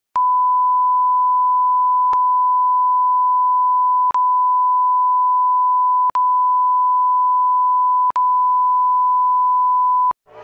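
Film-leader countdown sound effect: a steady high beep tone, broken by a short click about every two seconds, cutting off just after ten seconds.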